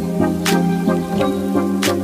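Background music: short pitched notes over a held low note, with a sharp clap-like hit twice, about a second and a half apart.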